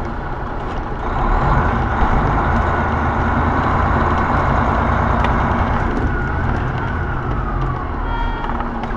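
Semi truck heard from the cab as it drives, its engine humming steadily under road noise. The rush swells for several seconds, and near the end a faint whine falls in pitch.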